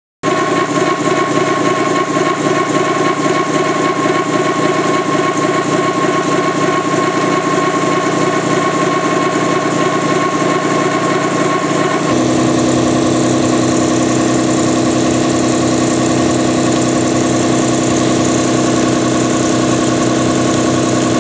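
Six-insert 80 mm face mill on a CNC machining center cutting a metal block, a loud steady cutting noise. Held in a standard toolholder, it carries a high ringing tone, the vibration chatter of a holder without dual contact. About 12 seconds in, the cut changes to the dual-contact DualDRIVE holder: the high ring is gone and a lower, steadier tone takes over.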